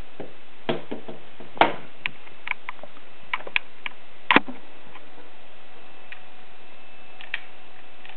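Scattered clicks and knocks from a lever-action .30-30 rifle being handled, about eight in all, the loudest about four seconds in, over a steady hiss.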